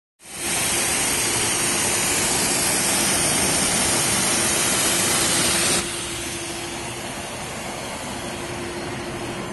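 High-pressure washer wand spraying water onto a car's hood: a loud, steady hiss that cuts off suddenly about six seconds in, leaving a quieter steady hum with a faint tone underneath.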